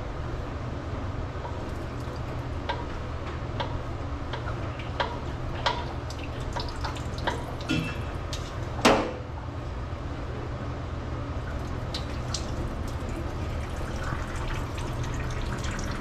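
Motor oil draining and dripping from a VW Kombi's sump into a drain pan, with scattered sharp metal clicks and a louder knock about 9 seconds in as tools are handled under the van.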